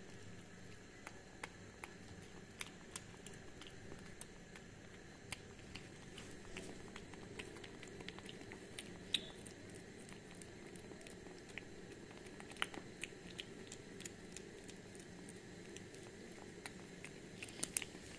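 Kitten eating wet cat food from a plate: faint wet chewing and small, quick clicks of its mouth and teeth on the food, a little busier near the end, over a steady low background noise.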